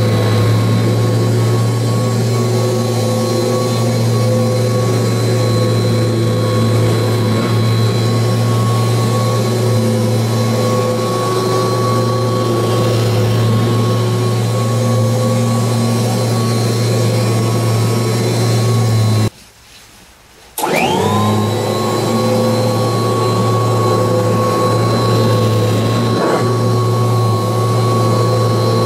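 1986 Kirby Heritage 2 upright vacuum cleaner running steadily with a high whine. About nineteen seconds in, the sound cuts out for a little over a second, then the motor starts up again and its whine rises quickly back to full speed.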